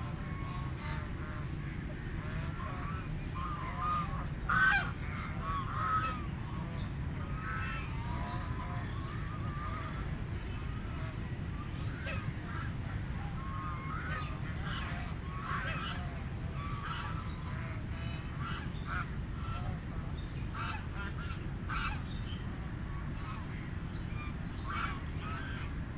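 Ducks quacking over and over in short, scattered calls, with a steady low rumble underneath.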